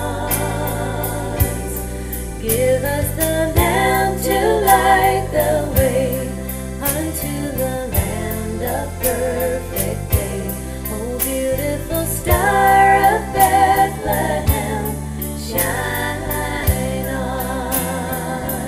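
Music with a steady beat in a gospel-style Christmas arrangement: regular drum strokes, a bass line and a melody that wavers with vibrato.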